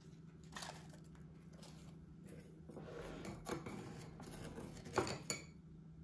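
Crinkling and rustling of a food packet with a few sharp snaps, as ingredients are added to a glass bowl.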